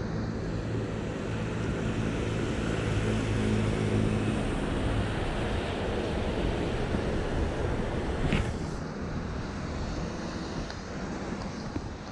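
A motor vehicle running past on a wet city street: a low engine hum over steady tyre and rain hiss, strongest a few seconds in and easing off, with a brief high-pitched squeak about eight seconds in.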